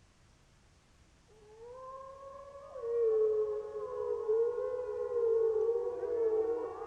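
A family pack of gray wolves howling. After about a second of quiet, one long howl slides in. From about three seconds a louder, wavering howl and higher howls join, several voices overlapping in chorus.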